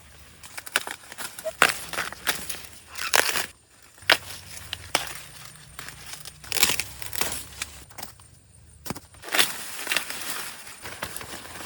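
Rustling and crackling of dry leafy plant material in irregular bursts, with sharp tearing and snapping sounds, like corn plants being pushed through or broken.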